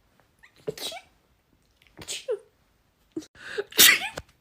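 A person sneezing three times in quick succession, each a short sharp burst about a second apart, the third the loudest.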